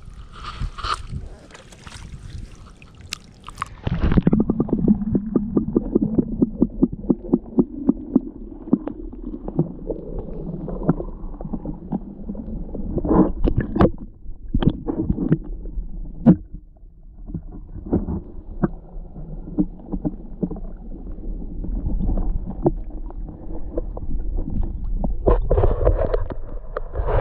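Water sloshing and splashing with irregular knocks and rattles as a trapped beaver is worked out of the water at a trap set. A hissing splash comes first, then about four seconds in a denser, louder sloshing begins, with a cluster of sharp knocks in the middle.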